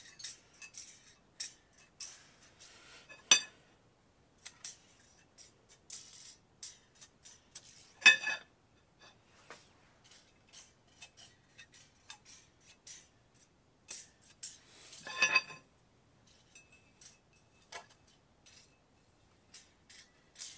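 Steel feeler-gauge blades and a straightedge clicking and clinking against the VW 1.6 diesel's cylinder head as its face is checked for warpage: scattered light clicks, with louder ringing metal clinks about three, eight and fifteen seconds in.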